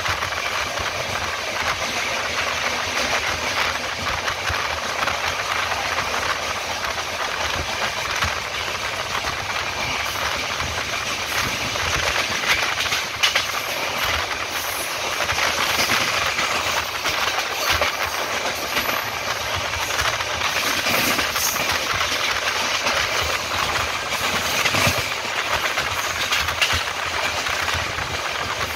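Express passenger train running at speed, heard from an open doorway of a coach. The wheels on the rails and the rushing air make a steady loud rumble, with scattered clicks and clatter through the middle.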